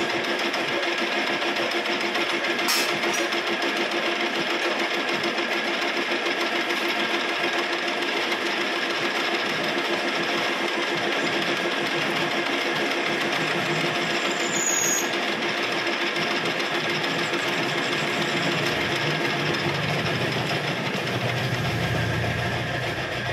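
Metal lathe running steadily, its spinning chuck turning a gear blank against the cutting tool, with a steady machine hum. Near the end the running note changes as the lathe is shut off and winds down.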